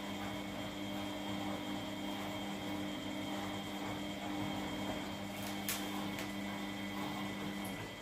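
Siemens front-loading washing machine running in its main wash, its motor giving a steady low hum that cuts off near the end. A couple of faint clicks come about two-thirds of the way through.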